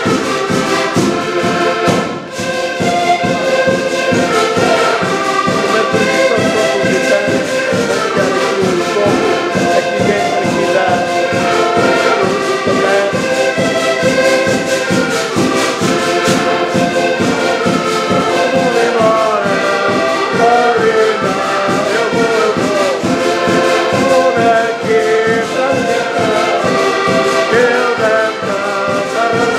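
Several accordions playing a lively tune together, with a drum keeping a steady beat. The music dips briefly about two seconds in, then carries on.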